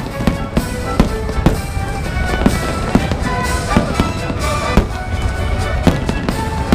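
Fireworks exploding in a steady run of sharp bangs, roughly one or two a second, with music playing underneath.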